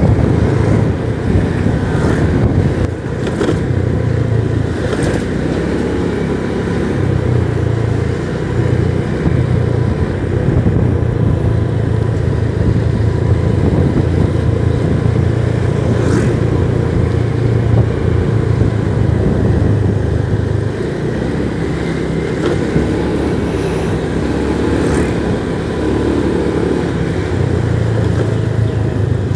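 Motorcycle engine running at a steady cruising speed as it is ridden along a road, with road and wind noise.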